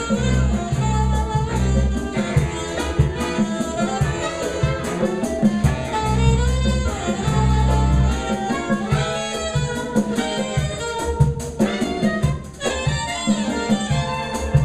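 Live Latin jazz band playing: saxophones carry the melody over a drum kit and low bass notes, with drum hits keeping a steady beat throughout.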